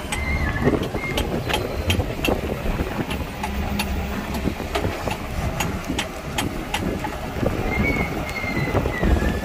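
Heavy diesel machinery running with a steady low rumble, with many sharp metallic clanks and clicks scattered through it. A faint wavering high whine comes in near the start and again near the end.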